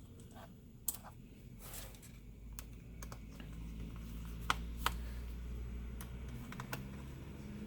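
Small clicks and taps of a screwdriver and screws against a laptop's plastic case as two screws are put back in, two sharper clicks about halfway through. A low steady hum builds from about three seconds in.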